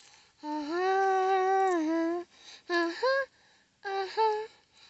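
A young girl singing without accompaniment. She holds one long, steady note, then sings two short notes that slide upward.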